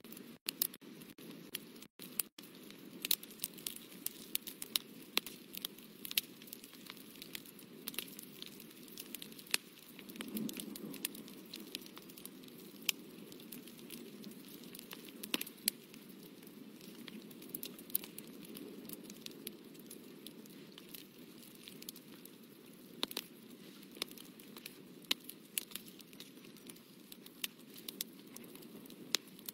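Small scratching, crackling clicks of a drawing or painting tool worked by hand on paper, irregular and scattered over a faint steady rustle that swells briefly about ten seconds in.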